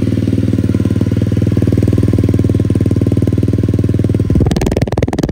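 Brand-new CRZ 125 semi-automatic pit bike's 1P54FMI four-stroke single running at a steady idle, freshly started and warming up while being run in. About four seconds in, the sound turns harsher and noisier, heard right at the muffler.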